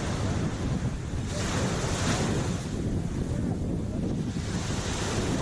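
Sea waves washing in, swelling twice, about a second in and again about four seconds in, over a steady low rumble of wind buffeting the microphone.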